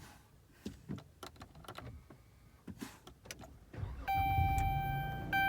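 A few light clicks, then a Dodge Charger's engine cranks and starts about four seconds in and keeps running steadily, with a few steady high tones sounding over it.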